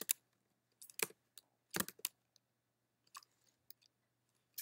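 Scattered keystrokes on a computer keyboard: a few taps in the first two seconds, then only a couple of faint ones.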